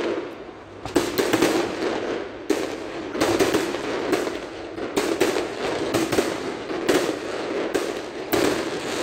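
Fireworks display: aerial shells bursting overhead, a running series of sharp bangs about one or two a second.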